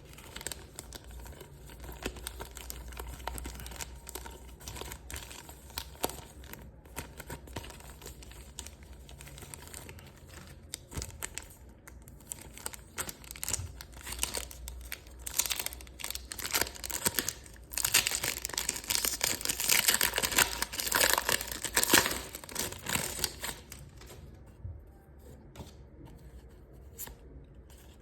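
Crinkling plastic and foil packaging of Pokémon card products being handled and torn open, with a stretch of loud tearing and rustling about two thirds of the way through.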